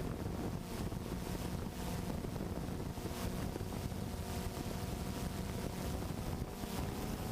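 A motor running steadily with a faint hum, under wind noise on the microphone.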